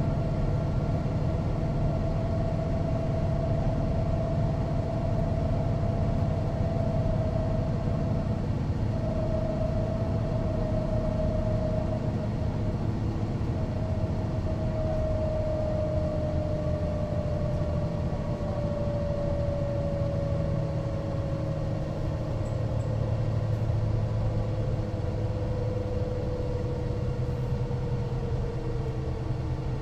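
Mercedes-Benz O405NÜ bus's diesel engine running with a deep rumble, under a steady whine that slowly falls in pitch over the whole stretch.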